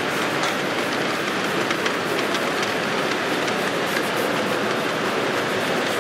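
Large-scale live steam model train running on the track: irregular light clicks over a steady hiss.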